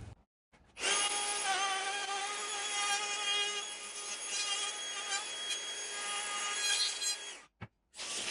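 Cordless router running with a steady high whine while cutting rebates into green oak. It stops about seven and a half seconds in and starts again near the end.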